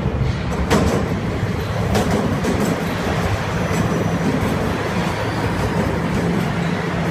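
TTC subway train running through the station: a steady rumble with a low hum, and sharp metallic clacks about a second in and again at two seconds.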